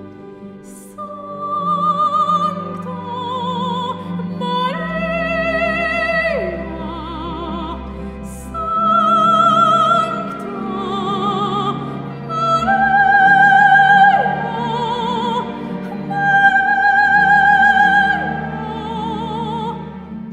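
Background music: a slow, classical-style piece with a high melody held in long notes with wide vibrato, leaping between pitches, over low sustained bass notes.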